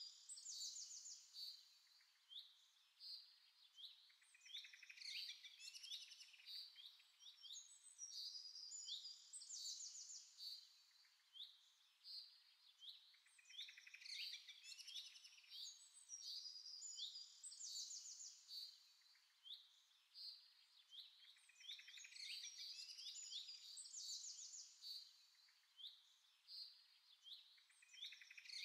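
Faint birdsong of high chirps and rapid trills. The same pattern of a high trill group followed by lower sweeping calls comes back about every eight or nine seconds.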